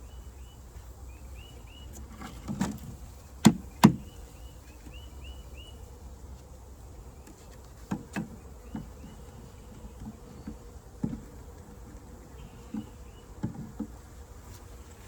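Honeybees buzzing steadily around an open hive, with two sharp knocks about three and a half seconds in and a few lighter knocks later.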